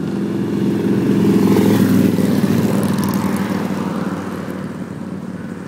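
A motor vehicle's engine, rising to its loudest about two seconds in and then fading as it passes.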